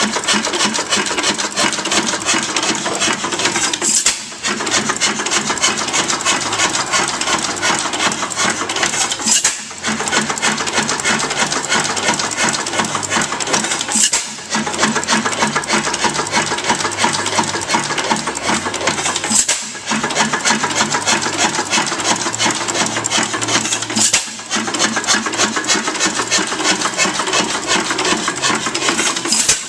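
5 HP Galloway round-rod hit-and-miss single-cylinder engine running, with a dense rapid mechanical clatter and a louder beat about every five seconds.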